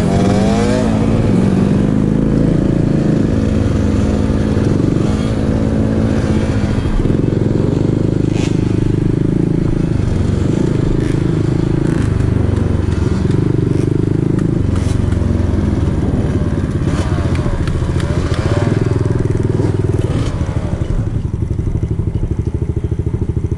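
Dirt bike engine running at low speed, its revs rising and falling several times with the throttle, then dropping lower near the end as the bike slows.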